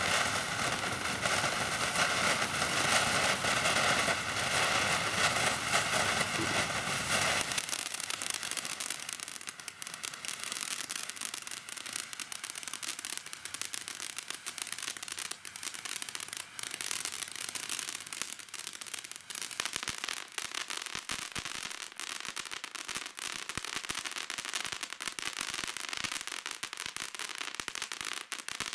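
Cutting Edge Fireworks 'Picture Perfect' firework fountain spraying with a steady hiss, which gives way after about seven seconds to dense, continuous crackling. The crackles grow heavier and deeper toward the end.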